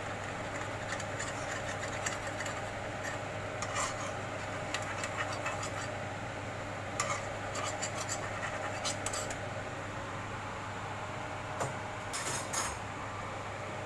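A wooden spatula and a metal spoon scraping and clicking against a non-stick wok as oyster sauce is stirred into hot water, with scattered light knocks over a steady low hum.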